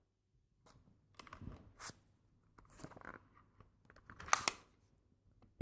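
Small Nerf blaster being primed and fired a few times: short sharp clicks and pops spread about a second apart, the loudest about four seconds in.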